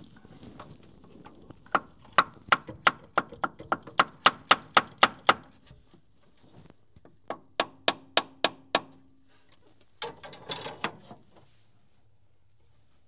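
Brass hammer tapping the starter motor of a Perkins 6354 diesel, metal on metal: a run of about a dozen sharp taps at about three a second, a pause, then about six more, followed by a brief scuffing noise near the end. The taps are meant to jar the starter's brushes so they make contact and the starter will crank.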